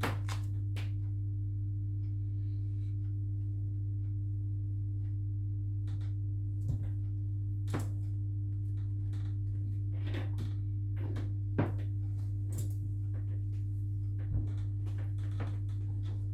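A steady low electrical hum with a fainter higher hum tone above it, broken by a few faint scattered clicks and knocks.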